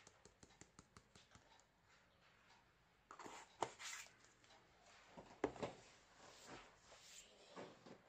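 Faint handling of small plastic nail-powder pots: light clicks and taps, then a few louder knocks and rustles in the middle as pots and lids are moved about.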